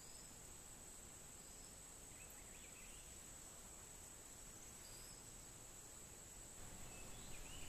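Near silence with a faint, steady high-pitched insect drone, cricket-like, and a few faint short chirps.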